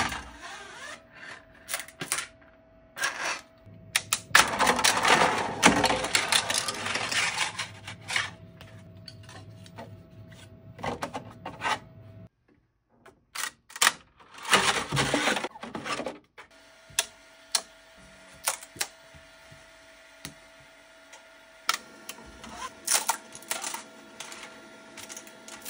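Sharp clicks, knocks and scraping of 3D-printed PLA parts being handled and lifted off a 3D printer's build plate, with two louder spells of scraping and rattling, over a faint steady hum.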